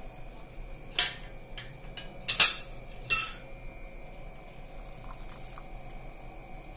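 A few sharp clinks and knocks of kitchenware, three in all with the loudest about two and a half seconds in, as a plastic hand-press lemon squeezer is handled against a metal cooking pot.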